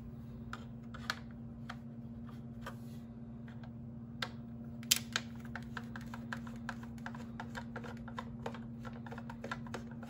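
A screwdriver backing screws out of a cordless handheld vacuum's plastic housing: a run of small clicks and ticks that grows much denser about halfway through, over a steady low hum.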